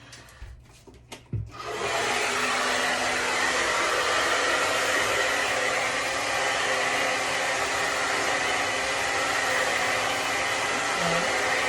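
A few light clicks, then a handheld blow dryer switches on about two seconds in and runs steadily, a rush of air with a faint high whine.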